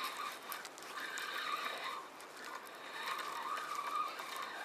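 Spinning reel being cranked as a surf-casting rig is wound in: a faint, steady winding sound.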